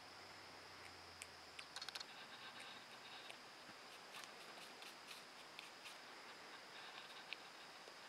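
North American porcupine biting and chewing an apple: faint, crisp crunching clicks, a quick flurry about two seconds in, then scattered single crunches.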